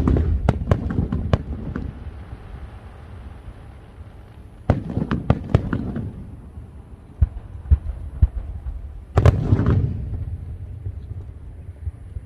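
Aerial fireworks bursting in three volleys: a quick cluster of sharp bangs at the start, another about five seconds in and a last about nine seconds in, each trailing off in a low rumble.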